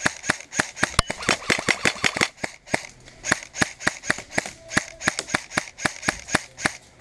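Airsoft rifle firing a long string of rapid single shots, about four a second, with a brief pause about two and a half seconds in, stopping just before the end.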